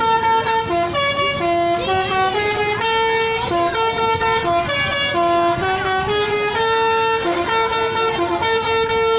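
Basuri telolet bus horn playing a tune: a string of held notes that step up and down in pitch, with a few sliding notes in between. It starts abruptly.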